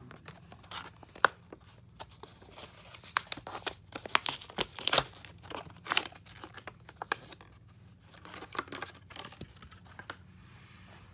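Packaging of a Matchbox diecast toy car being torn and crinkled open by hand: a run of sharp tearing and crackling noises with one loud snap about a second in, thinning out and growing quieter near the end.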